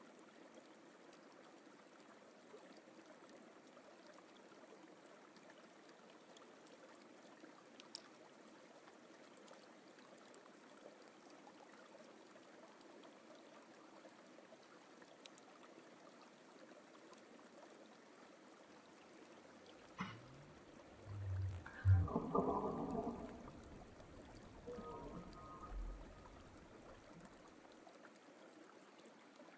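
Faint, steady rushing of a forest stream. About twenty seconds in, a few seconds of louder thumps and rustling break in over it.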